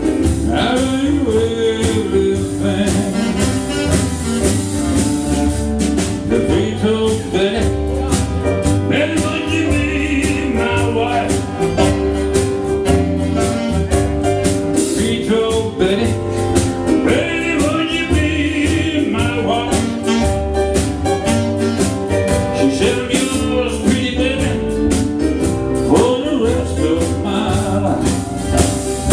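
Live band playing a bluesy song: acoustic guitar, electric bass, keyboard and drums, with a lead melody line over them.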